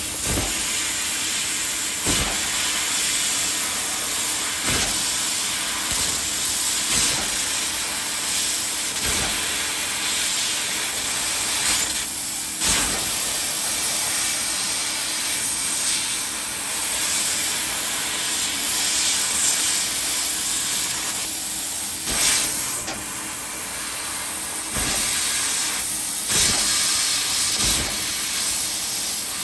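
Laser cutting machine cutting 0.2 mm spring steel: a steady loud hiss of gas jetting from the cutting head's nozzle, broken by a short sharp click every two seconds or so.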